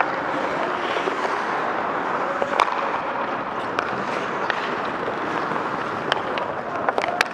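Ice hockey play up close: a steady scraping hiss of skates on the ice, with sharp clacks of sticks and puck a few times, two in quick succession near the end.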